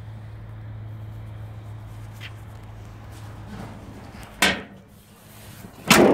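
Steel hood of a 1972 Chevrolet C20 pickup being closed: one sharp thump, then a louder slam about a second and a half later with a short metallic ring. A low steady hum runs underneath until just before the hood comes down.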